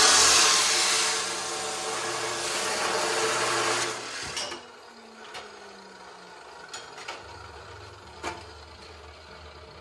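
Abrasive chop saw cutting through a steel strip, the cut ending about four seconds in. The motor then winds down with a falling hum, and a few light knocks follow.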